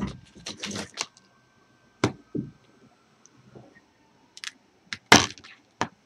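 Scattered clicks and clacks of hand tools and wire being handled on a plastic cutting mat, including a pair of wire strippers being set down. The loudest is a sharp crack about five seconds in.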